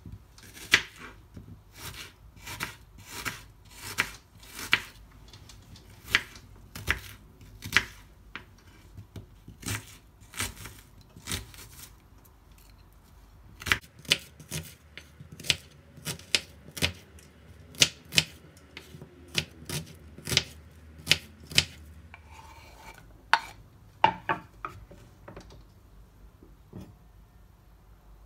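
Knife chopping onion on a wooden cutting board: sharp, irregular knocks of the blade on the board, one or two a second, which stop about four seconds before the end.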